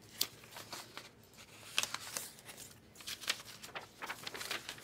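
Light, irregular clicks and taps of a computer mouse and keyboard, coming in small clusters of a few clicks each.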